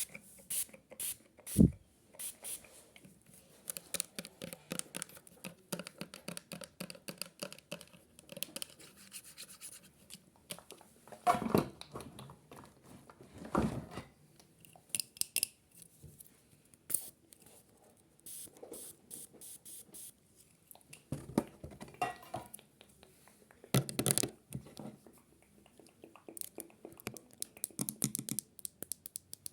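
Irregular clicks, scrapes and rubbing of objects being handled, with a few louder knocks about twelve, fourteen and twenty-four seconds in.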